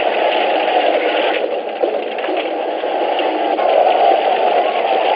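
Battle din from a film soundtrack: a large crowd of men shouting as they charge, a dense, continuous clamour. It sounds thin, with no deep bass or high treble.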